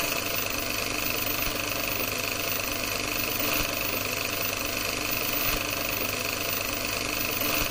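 Film projector running steadily, a continuous mechanical whirr and rattle of film being fed through.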